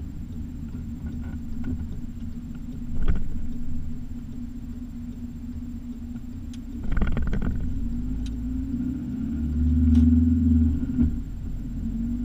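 Car driving along a road, heard from inside the cabin: steady low engine and tyre rumble, with a sharp knock about three seconds in, a rougher rattling stretch about seven seconds in, and the rumble swelling louder around ten seconds.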